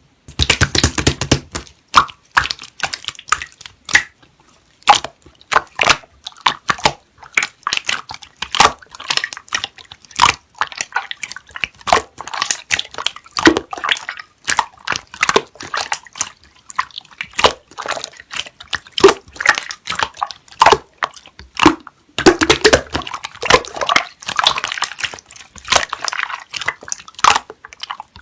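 Slime being squeezed and pressed by hand, making irregular sticky clicks and wet pops, in quick dense runs near the start and again about two thirds of the way through.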